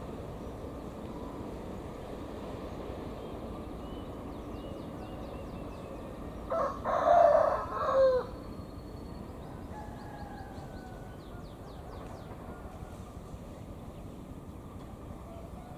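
A rooster crows once, about halfway through: a loud pitched call in two parts that falls away at the end. Under it runs the steady low rumble of a distant diesel locomotive, a KAI CC201.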